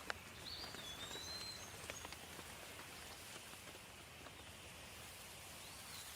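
Steady rain falling, with scattered individual drops striking close by during the first couple of seconds. A bird gives a short whistled call about half a second in and again near the end.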